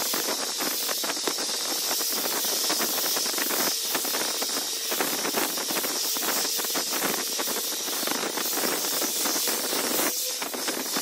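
Electric orbital sander running on the end grain of a hardwood cutting board at its final grit: a steady motor whir under the scratchy hiss of sandpaper on wood. It dips briefly about four seconds in and again near the end.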